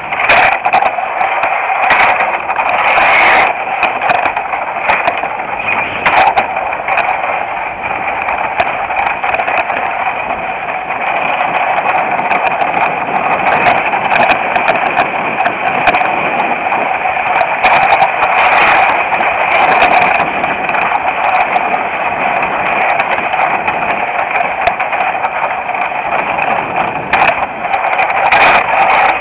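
Skeleton sled's steel runners sliding over the ice track at speed: a loud, steady rushing scrape, with sharp knocks and clatters as the sled jolts through the curves.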